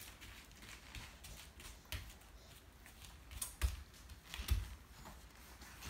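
Scattered light clicks and knocks of small hands on a metal wire pet pen, with two louder thumps a little after halfway.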